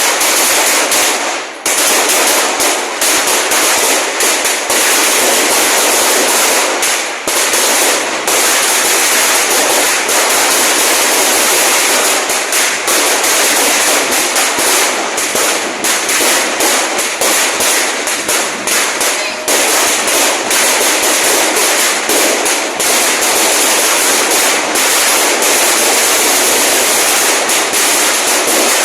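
A long string of firecrackers going off in a dense, continuous rapid crackle, loud throughout, with a few brief near-breaks as the string burns on.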